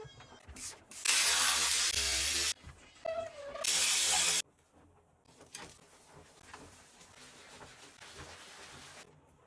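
A cleaning spray hissing in two long bursts, about a second and a half and then under a second, starting and stopping abruptly, followed by a much fainter steady hiss.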